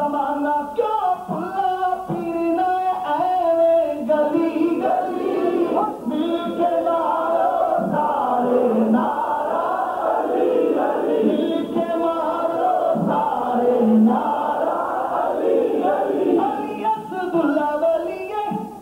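Unaccompanied male voices singing a naat together in chorus.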